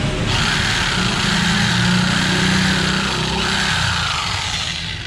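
Mailtank SH29 electric jigsaw switched on about a third of a second in, running unloaded with its blade in the air at its single full speed, a steady high motor whine with a blade-stroke hum.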